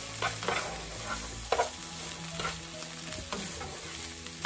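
Ground beef and stir-fry vegetables sizzling in a pan over medium-high heat while a wooden spoon stirs them. A few sharp scrapes and knocks of the spoon against the pan stand out, the loudest about a second and a half in and near the end.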